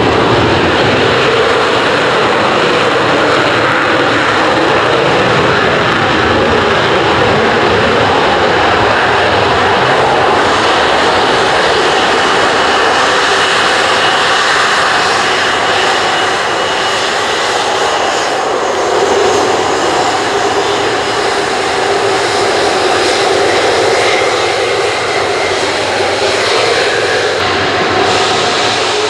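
Military jet engines running loud and steady, a continuous dense rush of engine noise with a faint whine coming in around the middle.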